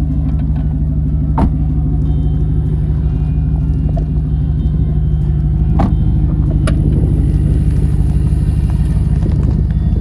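Chevrolet Colorado pickup's engine running steadily while the truck sits stuck in deep snow, with a few sharp clicks over it.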